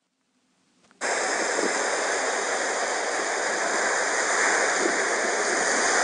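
Sea surf breaking on a shingle beach: a steady, even rush of waves that starts suddenly about a second in.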